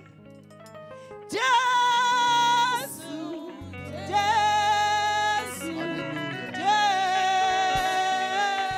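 A woman singing into a microphone: three long held notes with brief breaks between them, over steady instrumental backing.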